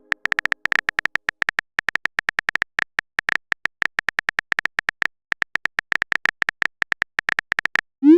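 Rapid taps on a smartphone's on-screen keyboard, each a short tick, several a second with a couple of brief pauses. Near the end comes a short rising swoosh, the sound of a text message being sent.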